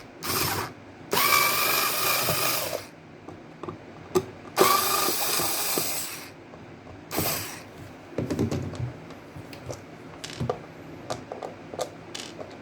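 Small electric screwdriver running in four short bursts, backing out the screws of an electric kettle's casing, followed by scattered light clicks and taps as the parts are handled.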